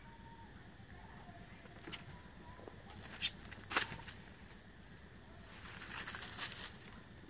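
Rustling and snapping in dry leaf litter and twigs: two sharp clicks, a little after three seconds and just before four, then about a second of rustling near six seconds.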